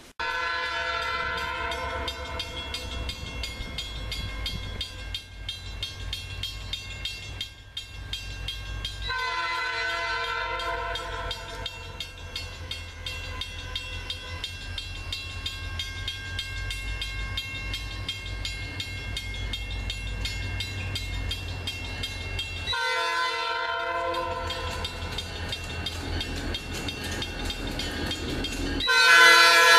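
Approaching diesel freight locomotive sounding its multi-note air horn for a grade crossing. The horn swells into long blasts three times, with a shorter one late on, and the last is the loudest, near the end. Under the horn is a steady low diesel rumble that grows as the locomotive approaches.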